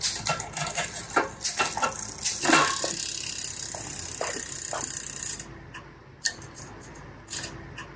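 Road bike drivetrain being handled in a repair stand: a string of clicks and knocks, then about three seconds of a steady whirr of the chain and freewheel as the drivetrain spins, then a few light clicks near the end.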